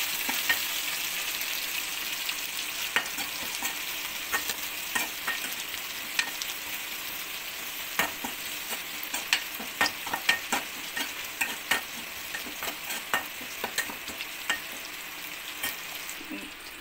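Onion, curry leaves and green chilli sizzling in oil in a steel kadai while a steel ladle stirs them, scraping and knocking against the pan. The sizzle eases slightly over time, and the ladle clicks come thicker in the second half.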